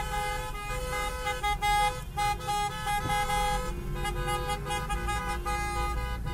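A chorus of car horns honking together, several horns at different pitches overlapping in long and short blasts over a low rumble, heard from inside a car through an opened side window.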